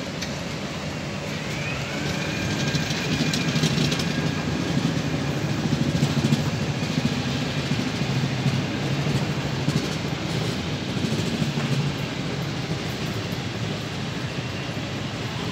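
A motor vehicle's engine rumbling close by in street traffic, swelling over several seconds and easing off near the end.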